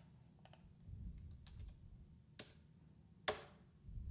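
A few faint clicks from a computer keyboard and mouse, with the loudest, sharpest click a little over three seconds in.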